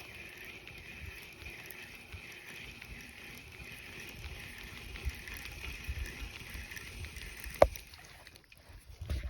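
Outdoor background with a steady, high-pitched drone that pulses about twice a second, under low rumbles of handling or movement. One sharp knock comes about seven and a half seconds in.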